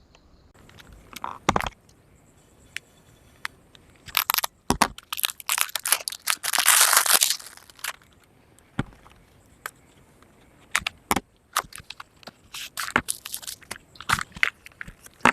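Product packaging being handled and opened: scattered clicks and crackles, with a longer rustle about six to seven seconds in.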